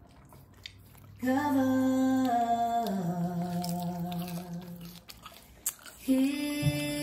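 Background music of slow, long-held hummed notes that step down in pitch, beginning about a second in and pausing briefly before the next phrase.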